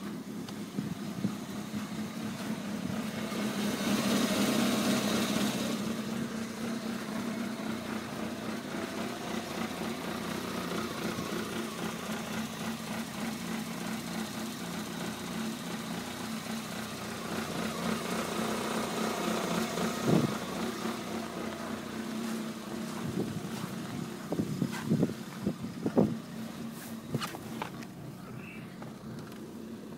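1993 Toyota Corolla's four-cylinder engine idling roughly just after a cold start below freezing, with no check engine light. The sound swells for a couple of seconds a few seconds in, and a few sharp knocks come near the end.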